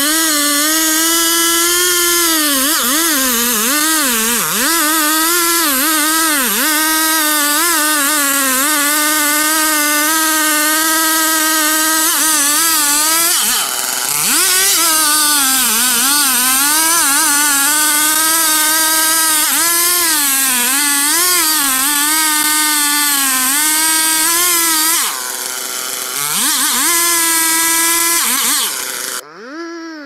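Two-stroke chainsaw running at high revs while cutting into a very large tree trunk, its pitch repeatedly dipping and recovering as the chain bogs down in the wood. About 25 seconds in it briefly drops in level, and it cuts off sharply just before the end.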